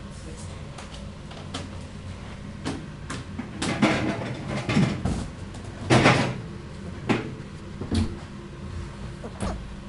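A puppy scrambling over a fabric dog bed and nosing at the camera: scattered soft bumps, rustles and handling knocks, the loudest about four and six seconds in.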